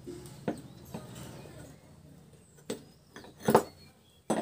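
Sharp metallic knocks and taps of hand tools working the aluminium side cover of an e-rickshaw hub motor, about seven in all and irregularly spaced, the loudest about three and a half seconds in with a brief ring. A low hum fades out about halfway through.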